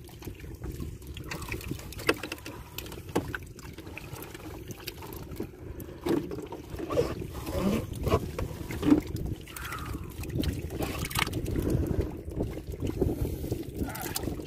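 Water trickling and lapping around a small fishing boat on choppy open water, with wind and a few short knocks against the hull.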